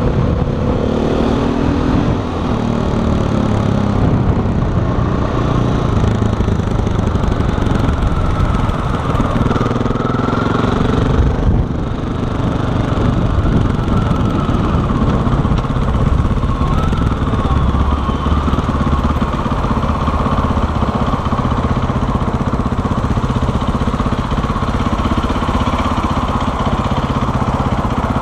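KTM 500 EXC Six Days single-cylinder four-stroke engine running as the motorcycle is ridden through traffic. Its note falls and rises with throttle and gear changes in the first half and drops briefly a little before the middle. It settles to a steadier low note in the second half.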